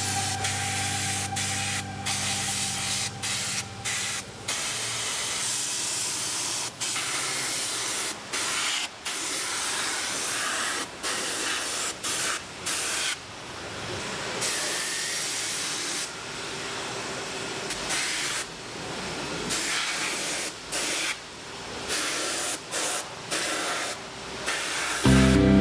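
Compressed-air undercoating gun spraying Würth bitumen underbody protection from a screw-on can: a steady hiss in bursts, broken by many short pauses.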